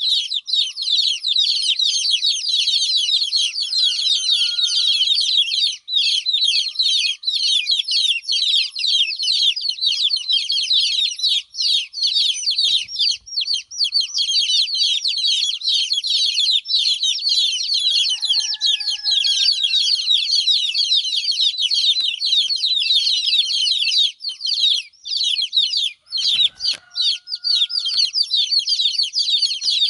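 Many baby chicks chirping loudly and continuously, rapid high downward-sweeping peeps overlapping without pause. The chicks are calling for their absent mother hen. A few lower, longer calls come in about four seconds in, near eighteen seconds and near twenty-six seconds.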